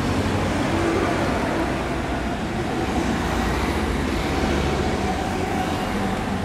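Road traffic noise: car engines and tyres in busy, slow-moving city traffic, a steady din with a low engine hum.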